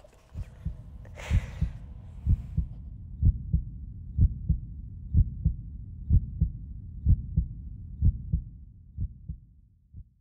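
Heartbeat sound effect: a steady lub-dub double thump about once a second, fading out near the end.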